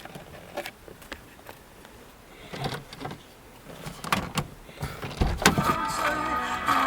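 Scattered clicks and knocks inside a car, then a heavy thump a little after five seconds in. Near the end, music from the Honda Civic's car stereo comes on.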